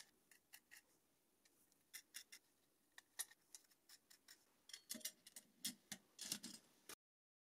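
Faint, scattered small clicks and taps of M3 set screws and T-nuts being handled and fitted to a CNC controller board's acrylic case, coming closer together in the second half.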